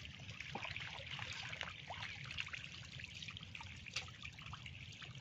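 Faint trickling and little splashes of shallow muddy water, with many small ticks and plops as small stranded fish flip about at the surface.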